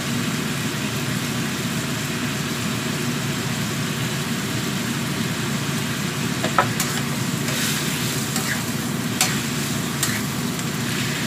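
Sliced bottle gourd sizzling in a wok over a gas burner, with a steady low hum underneath and a few sharp clicks about two-thirds of the way through.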